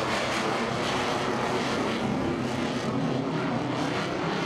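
Jet engine noise from an F-16 fighter flying past: a loud, steady roar.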